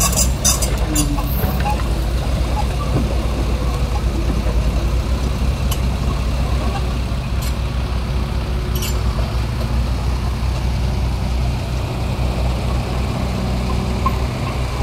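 Crawler excavator's diesel engine running steadily under load, with a heavy low drone. Several sharp knocks in the first second and a few more later as the bucket scrapes and strikes broken asphalt.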